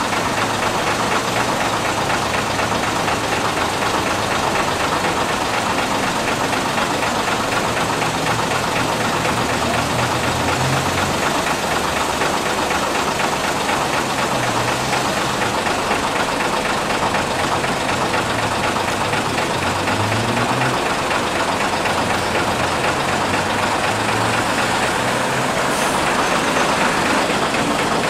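Heavy engines of vintage buses running, idling with the low engine note shifting up and down as the buses manoeuvre and move off.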